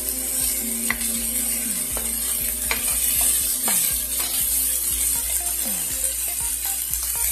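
Diced onions and garlic sizzling in olive oil in a frying pan, with a plastic spoon scraping and clicking against the pan as they are stirred.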